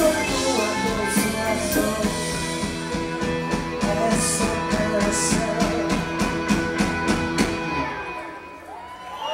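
Live band playing with several women singing together over electric guitar and drums, cymbals ticking steadily; near the end the song stops and the last sound dies away.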